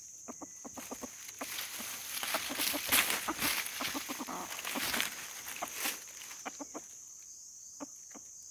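Roosters clucking with a scuffle and rustling of dry leaves, loudest between about two and six seconds in, as a held decoy cock and a wild red junglefowl cock face each other. A steady high insect buzz runs underneath.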